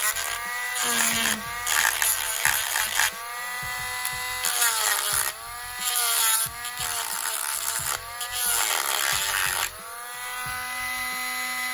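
Handheld rotary tool with a cut-off wheel grinding down a small metal screw to shorten it. A high motor whine sags in pitch several times as the wheel bites into the screw, with repeated bursts of grinding hiss.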